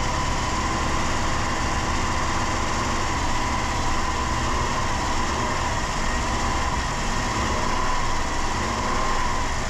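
Chrysler 3.3-litre V6 running steadily at an even speed while it burns off the last of an intake cleaner being drawn into the engine through a vacuum line.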